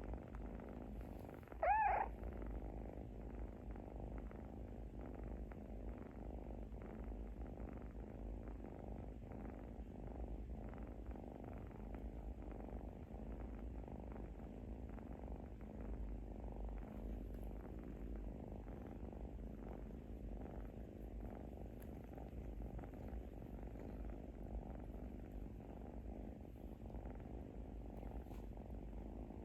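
Sleeping kitten making a steady purring snore. About two seconds in comes one brief, high-pitched squeaky call.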